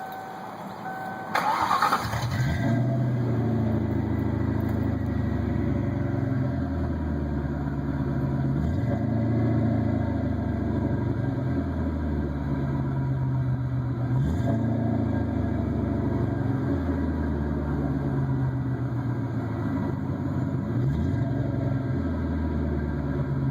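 Ford Mustang GT 4.6 V8 through Thrush welded chambered mufflers and dual exhaust, starting about a second and a half in and then idling with a low, rhythmic rise and fall in its exhaust note.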